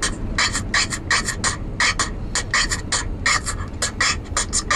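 Hip-hop beat without vocals: crisp, hissy percussive hits, about five a second in an uneven pattern, over a steady low rumble.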